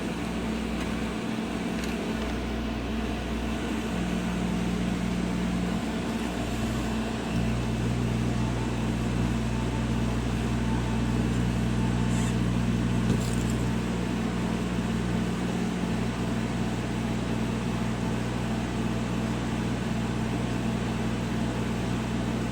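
Laser CNC glass-etching machine running with a steady electric hum, its tones shifting briefly about four and seven seconds in.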